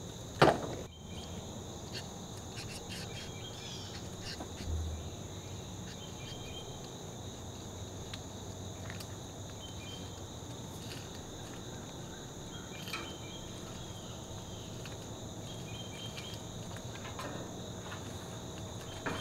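Insects chirring steadily and high-pitched, with a sharp knock just after the start and a few light taps of handling later.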